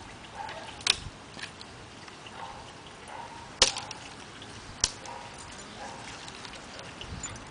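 Siberian husky puppy biting and breaking twigs off a dry tree branch: sharp snaps of dead wood, louder about a second in, three and a half seconds in and near five seconds, with smaller clicks between.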